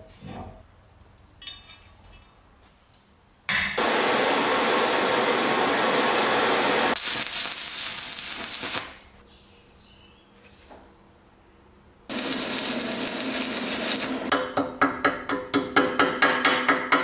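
Light clicks of metal being handled, then a long steady hiss lasting about five seconds. After a short lull comes steady rasping that turns into a hand file scraping across a rusty metal handwheel in quick, even strokes, about three a second.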